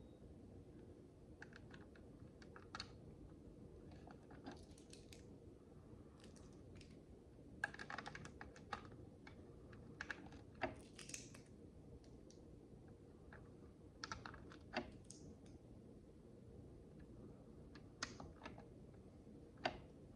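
Micro building bricks clicking and rattling as small plastic pieces are handled and pressed together: scattered light clicks, some in quick little clusters, over a faint steady hum.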